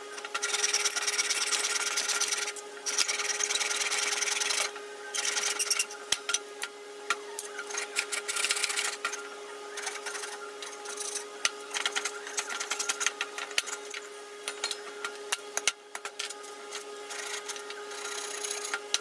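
Hand saw cutting through a block of cedar. It starts with long, even strokes, then turns to shorter, uneven strokes with many sharp little clicks.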